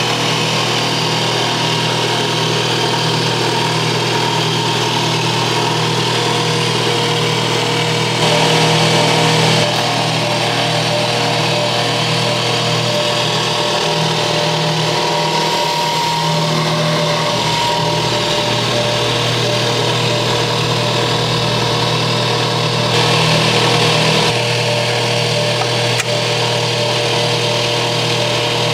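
Electric motor of a SICOLI two-hole paper drilling machine running and spinning its two paper drills through a belt drive, a steady mechanical hum with several fixed tones. The low part of the hum dips and wavers for a few seconds around the middle, while the drill heads stand over a stack of paper.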